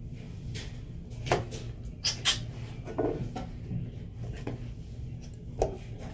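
Irregular short knocks and clicks of small objects being handled and set down, over a low steady hum.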